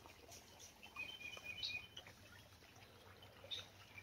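Faint bird call in woodland: a thin high-pitched call starting about a second in and lasting about a second, over near-silent background with a few faint ticks.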